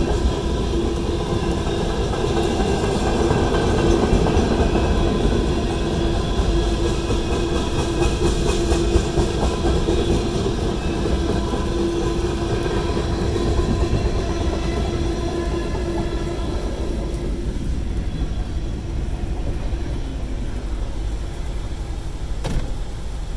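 Freight train of tank cars rolling past over a grade crossing, wheels clicking and rumbling on the rails. A steady tone sounds with it until about two-thirds of the way through, then the sound thins and grows quieter.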